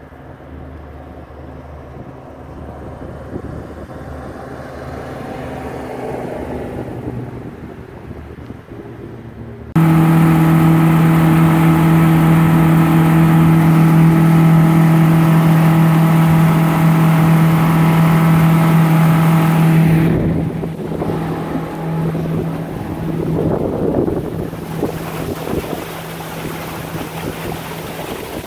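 Outboard motor running steadily, then suddenly much louder for about ten seconds at nearly wide-open throttle, a run to clear the engine out, before dropping back to a lower steady drone.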